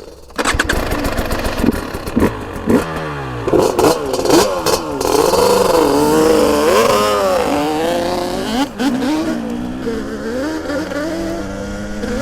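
Two-stroke off-road engines revving hard, their pitch climbing and falling again and again. The sound starts abruptly about half a second in, with clattering knocks over the first few seconds.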